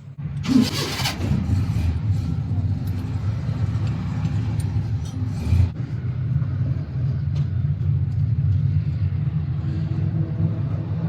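A motor-driven machine starts abruptly and runs with a steady low hum, with a brief burst of hiss about half a second in.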